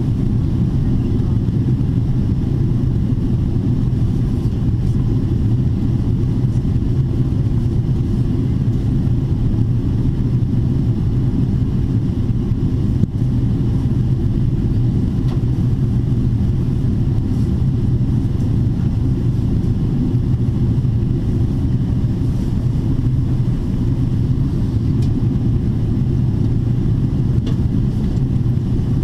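Steady low cabin rumble of a Boeing 777-300ER in descent: airflow and engine noise heard from a window seat over the wing. A faint click about halfway through.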